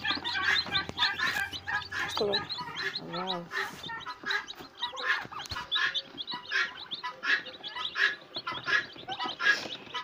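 Newly hatched chicks peeping in an incubator tray: a dense, continuous run of short, high, falling chirps. A single lower bird call comes about three seconds in.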